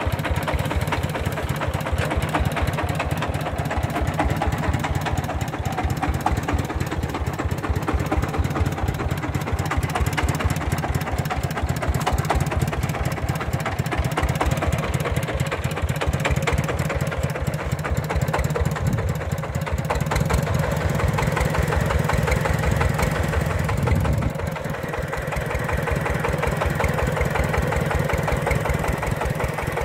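Old diesel engine of a mobile rice-mill vehicle running with the steady, rapid thumping beat of an old diesel; its level dips briefly about 24 seconds in, then the running goes on as before.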